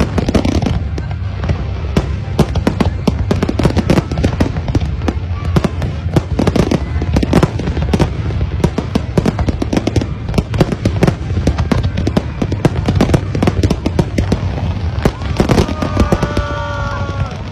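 Fireworks display: a dense, continuous barrage of bangs and crackles from shells going off in rapid succession over a steady low rumble. Near the end a few pitched sounds rise and fall over the barrage.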